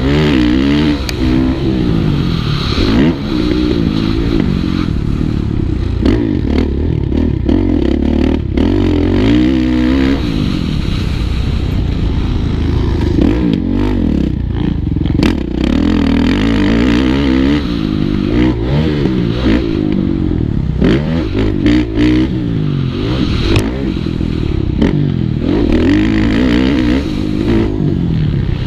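Kawasaki KX450F single-cylinder four-stroke motocross engine revving up and dropping back again and again as it is ridden hard through the gears, heard from the rider's helmet. A few sharp knocks stand out over the engine.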